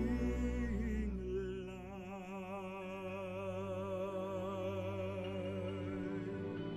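Slow, sombre string-orchestra music: a low sustained chord under which a deep male singing voice, a bass-baritone, enters about a second in and holds one long note with wide vibrato.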